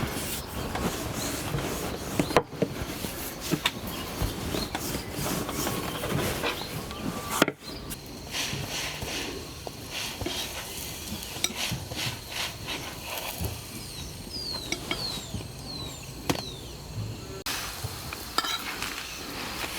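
Scattered clinks and knocks of pots, plates and utensils being handled while cooking, with a few short high chirps in the background.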